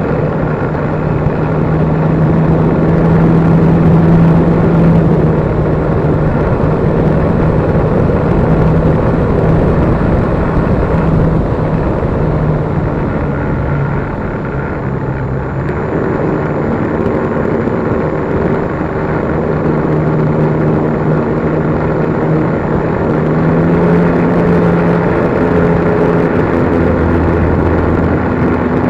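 RC trainer plane's motor and propeller droning steadily, picked up by an action camera mounted on the plane, with wind rushing over the camera. The pitch shifts a little as the throttle changes.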